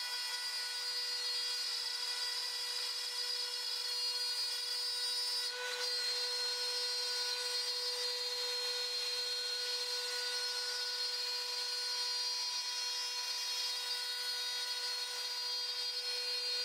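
Makita trim router spindle of a CNC router running at high speed with a steady whine as it carves a relief pattern into MDF board. The sound briefly dips about five and a half seconds in.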